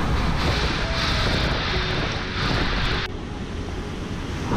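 Hurricane wind and driving rain lashing against windows: a dense, steady rushing noise with deep rumble. The sound turns duller about three seconds in.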